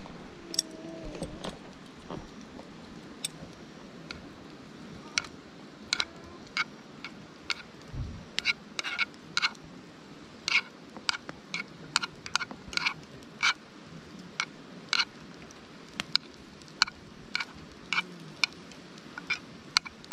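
Chopsticks clinking and scraping against a metal frying pan while rice is stir-fried over a wood fire: irregular sharp, ringing metallic clinks, about one or two a second, over a steady hiss.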